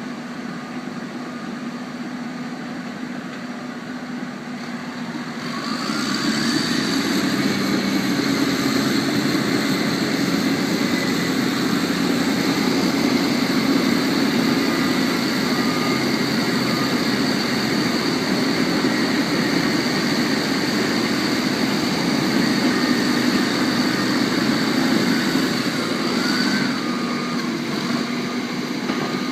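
Bulldozer running steadily. About six seconds in it speeds up and gets louder with a rising pitch, holds there under load, then eases back down near the end.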